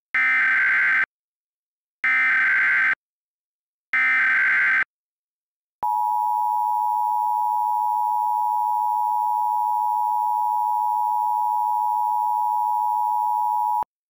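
Emergency Alert System tones: three short bursts of SAME header data tones about a second apart, then the two-tone attention signal, one steady, harsh dual tone held for about eight seconds before cutting off sharply.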